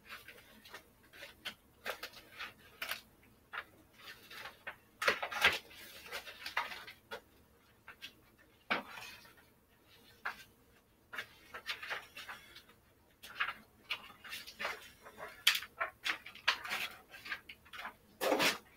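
Irregular clatter and rustling of items being handled and moved about on a wooden shelf, short knocks and scrapes at uneven intervals, with a louder knock near the end.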